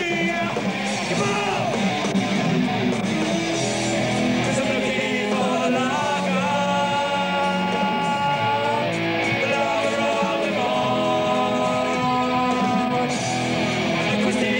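Rock band playing, with electric guitar and a man singing; long held notes come in about halfway through.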